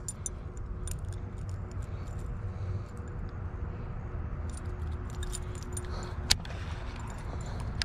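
Light metallic clinks and ticks from a bent spinnerbait and a baitcasting rod and reel being handled, with one sharper click about six seconds in, over a steady low rumble.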